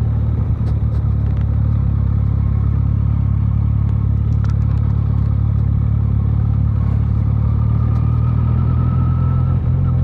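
Benelli TNT 300's 300 cc parallel-twin engine running steadily while the motorcycle is ridden at an even speed.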